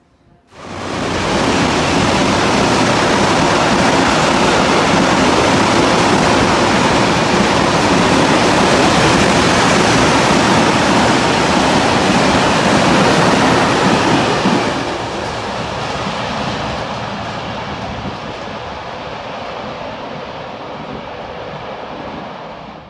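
Freight train of covered hopper wagons passing through at speed on the near track: a loud, steady rumble and rush of wheels on rail that sets in suddenly and falls to a lower level about fifteen seconds in.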